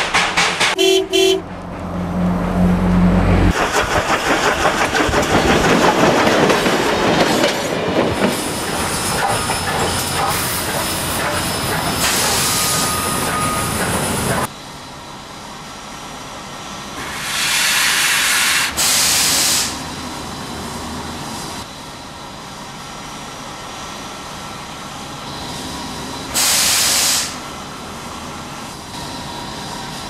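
Steam locomotive hauling a line of freight trucks. It opens with fast, regular chuffing, then a long loud rattling rumble of the trucks on the rails that stops abruptly about halfway through. After that a quieter steady hiss follows, broken twice by louder bursts of steam escaping.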